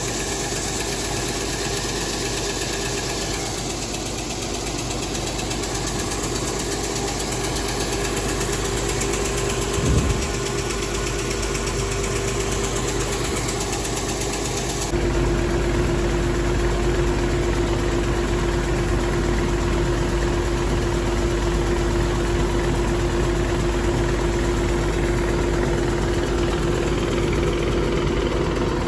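Feed-mill machinery running with a steady hum as ground feed pours from a metal spout into a pit. There is a single knock about ten seconds in. About halfway through, the sound changes suddenly to a louder, deeper drone with a slightly lower steady tone.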